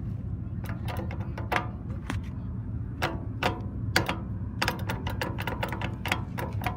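Old McCain crosswalk push button being pressed again and again, giving sharp mechanical clicks at an uneven pace, with a quick run of clicks about four and a half seconds in. A steady low traffic rumble lies underneath.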